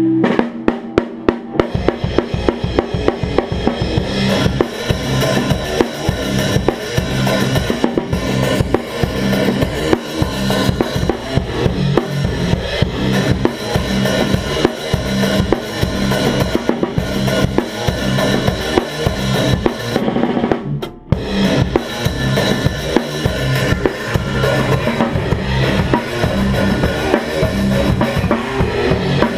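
Metal band jamming: a drum kit played hard with rapid bass drum and snare hits over a low, heavy repeated riff. Everything stops for a split second about three-quarters of the way through, then the band comes back in.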